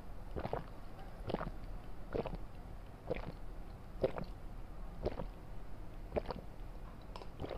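A person swallowing gulps of a drink from a glass, close to a lapel microphone: short, even gulps about once a second, eight in all.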